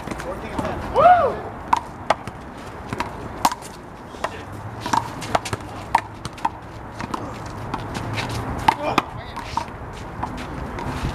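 One-wall handball rally: a rubber handball is repeatedly smacked by hands and slaps off the wall and ground in sharp, irregular hits.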